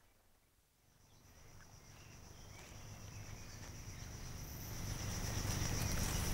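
Insects chirring steadily at a high pitch over a low rumble, fading in after about a second of silence and growing louder.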